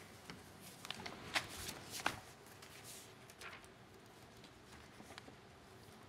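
Paper sheets rustling and being shuffled at a desk, a run of short crisp rustles in the first few seconds, the two loudest about one and a half and two seconds in.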